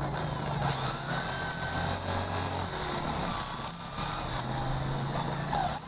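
Electric hand drill with a 10.5 mm bit boring into a Honda TMX 155's aluminium crankcase, drilling out a stripped cylinder stud hole so it can be tapped for a larger thread. The drill runs steadily, with a high hiss of the bit cutting metal.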